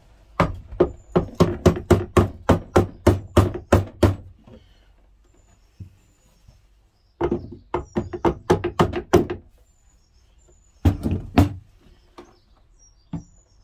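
Hammer blows knocking the new aluminium back foot home on a Karcher K4 pressure washer. Three runs of quick strikes, about three a second, with short pauses between; the first run is the longest and the last is three blows.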